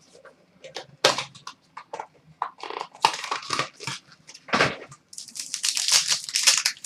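Hands opening trading card packaging and handling cards: a series of short crinkling and rustling sounds, growing denser and higher-pitched near the end.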